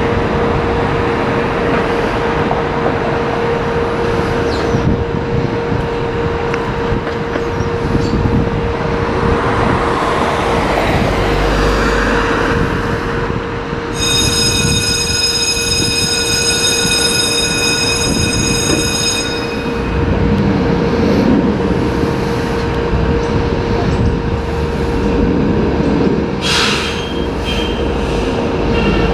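Fire apparatus engines idling and pulling out: a 2008 KME 100-foot ladder tower and a 2006 Ford Expedition battalion car, a steady low rumble with a constant hum. Midway a steady high-pitched tone sounds for about five seconds, and near the end there is a short burst of hiss.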